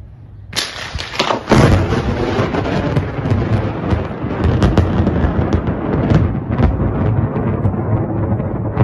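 A close thunderclap: a sudden sharp crack about half a second in, a few more cracks over the next second, then a long, loud rolling rumble with scattered crackling.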